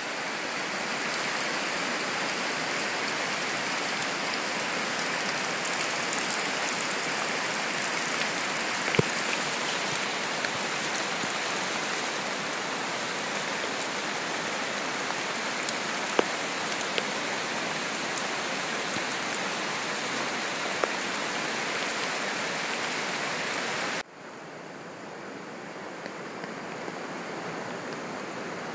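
Heavy rain and floodwater running: a steady, dense hiss with a few sharp ticks. It drops abruptly to a quieter hiss about 24 seconds in.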